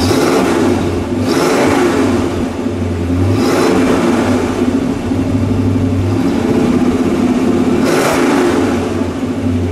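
A 1966 Ford Fairlane GTA's 390 cubic-inch V8 revved four times through its factory mufflers, dropping back to a steady idle between the revs. The revs come right at the start, near two seconds, around three and a half seconds and near eight seconds.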